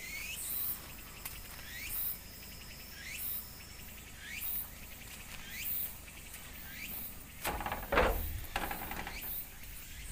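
Insects calling from woodland: a high call that rises sharply in pitch repeats about every second and a quarter, over a steady thin whine that stops a few seconds in. A loud rustling thump comes about three-quarters of the way through.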